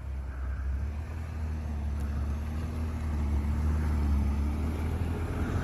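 2021 Ford Bronco Wildtrak's twin-turbo V6 pulling the truck slowly through deep snow: a steady low engine rumble that grows louder as the truck comes closer.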